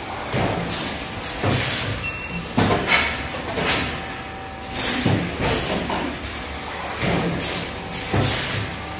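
REI 22VGF cup filling and sealing machine running: short pneumatic hisses of exhaust air come every one to two seconds or so, each with a dull knock of the moving tooling, over a steady machine hum.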